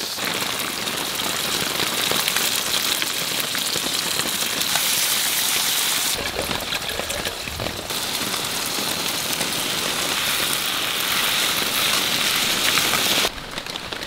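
Heavy rain falling steadily, its sound changing abruptly a few times, about six, eight and thirteen seconds in.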